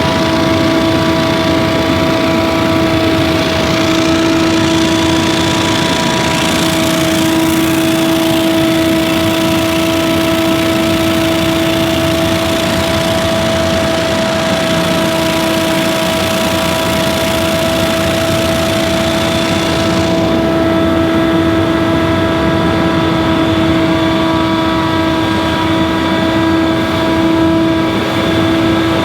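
Gas-powered leaf blower running steadily at constant speed, a loud engine-and-fan drone with a strong, even whine.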